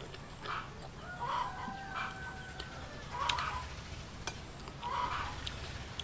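Chickens clucking, several short calls spaced a second or two apart. There are a few sharp clicks of a spoon against a plate.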